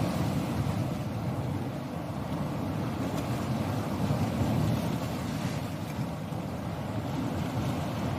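Ocean surf: a steady low rumble of waves, swelling slightly about four seconds in.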